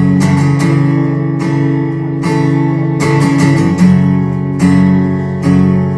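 Acoustic guitar strumming chords in an instrumental break of a song, a fresh strum about every second, with no singing.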